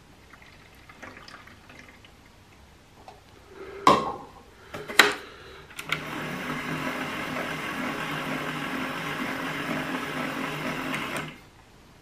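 Casdon Hoover Electron 1100 De Luxe toy washing machine: two sharp clicks about four and five seconds in, then its small electric motor turns the drum with a steady whirr and low hum for about five seconds before cutting off suddenly, a tumble phase of its wash cycle.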